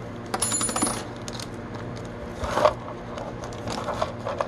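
Small hard parts of a drive-sprocket gear kit clicking and rattling as they are handled and set down on a work surface. There is a dense run of clicks in the first second, a louder rustle about two and a half seconds in, and scattered light clicks after it.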